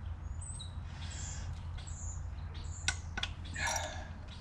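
Birds chirping in short, high calls with quick downward glides. About three seconds in there are two sharp metal clicks, then a short clatter, as tools are handled.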